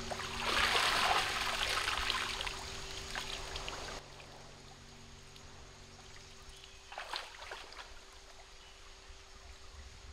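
Water splashing and sloshing as a woven basket of starfruit is dipped and swished in a shallow stream, loudest in the first few seconds, then a quieter flowing stream with one short splash about seven seconds in as she wades.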